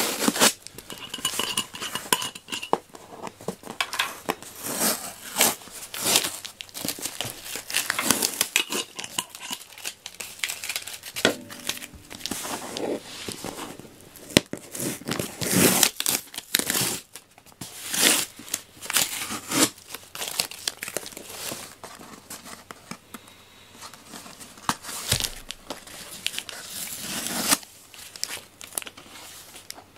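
Packing tape being peeled and ripped off a cardboard box, with the cardboard flaps rustling and crinkling: a long series of irregular tearing rips and rustles.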